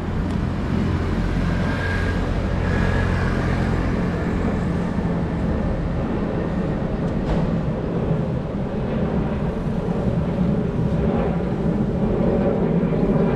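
Steady street noise of road traffic, heard while riding a bicycle along a city street.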